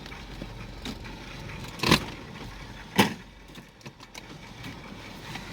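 Two sharp thumps about a second apart, over low background noise.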